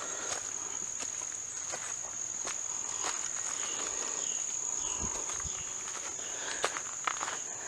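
Insects trilling in one steady, high-pitched unbroken drone, with footsteps on the trail ticking under it.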